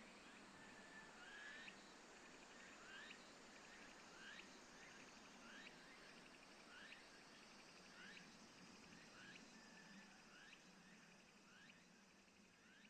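Near-silent outdoor background with faint, evenly repeated rising chirps from a small calling animal, about one every second and a quarter.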